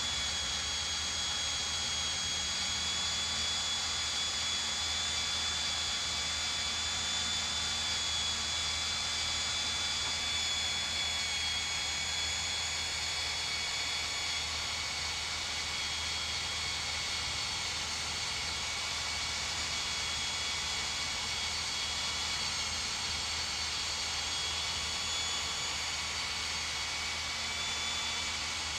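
Cordless drill running steadily under load with a high, even motor whine as its bit bores through a steel trailer flange.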